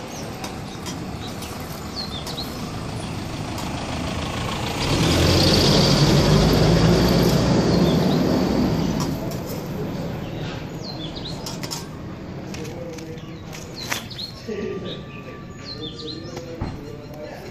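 A vehicle passes along the street, swelling up a few seconds in and fading away over about five seconds. Around it come a few sharp metal taps of a spatula on the roti griddle, and birds chirping.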